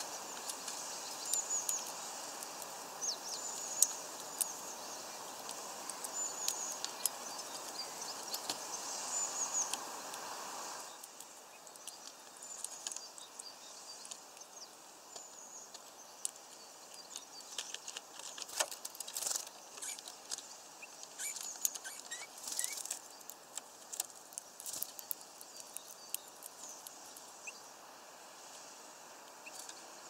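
Wild birds at a feeder: small birds' short, high chirps and calls, with scattered sharp taps and clicks. A steady background hiss drops away about eleven seconds in.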